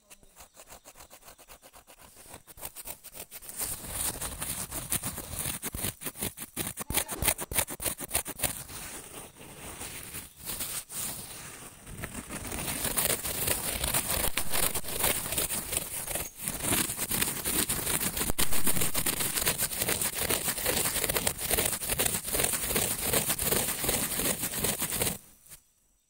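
Dense crackling, rubbing noise full of quick clicks, building up over the first few seconds and stopping abruptly near the end.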